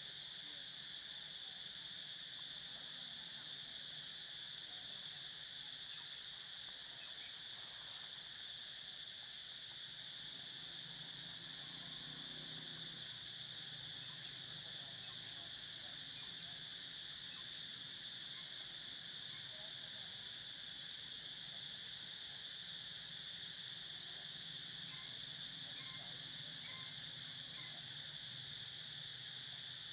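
Steady, high-pitched insect chorus droning without a break, with a few faint short chirps over it.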